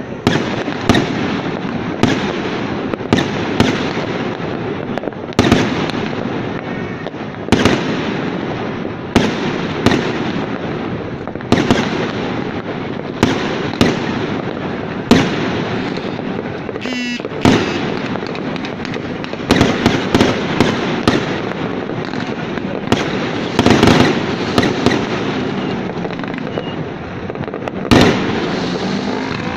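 Aerial fireworks bursting overhead: sharp bangs every second or two, with a steady din of the display between them.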